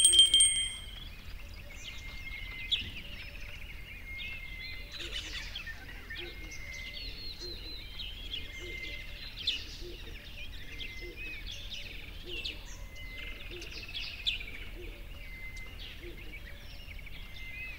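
A chorus of small songbirds chirping and warbling, many short calls overlapping over a light hiss, with a soft low note repeating a little more than once a second. Right at the start a click and a brief bell-like ding.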